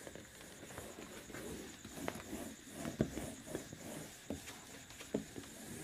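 A duster wiping a whiteboard: faint, irregular rubbing strokes, with a few light knocks about two, three and five seconds in.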